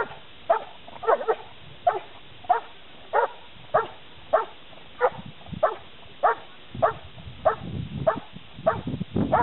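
German shepherd barking steadily at a helper holding a bite sleeve, a short sharp bark about every 0.6 seconds. This is the guarding bark of protection training, with the dog demanding the sleeve.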